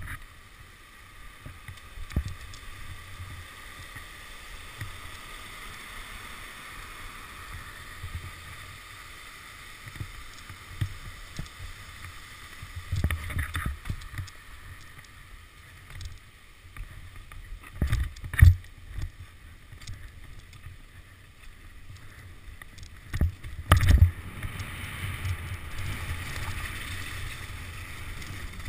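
Mountain bike ridden fast down a dirt trail, heard from a helmet-mounted camera: a steady rumble of wind and tyres on the mic with the bike rattling. Hard knocks from bumps and landings stand out about 13 seconds in, twice around 18 seconds, and again around 24 seconds.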